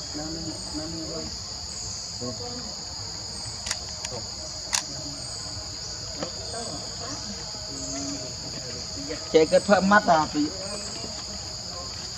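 A chorus of insects drones steadily at a high pitch. Two sharp clicks come about four and five seconds in. Around the ten-second mark a short wavering cry, the loudest sound here, lasts about a second.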